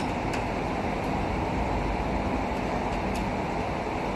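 Steady rushing mechanical background noise, with two faint light clicks from wire connectors being handled on the machine's control board, one just after the start and one near the end.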